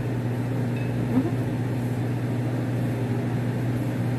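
A steady low mechanical hum, unchanging in level.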